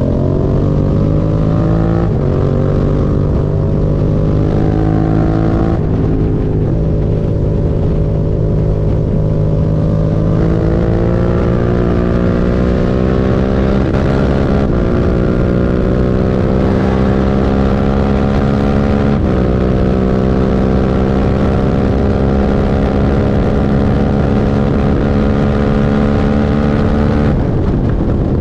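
Suzuki SV650's V-twin engine running under way, its pitch climbing slowly and dropping sharply several times, as at gear changes.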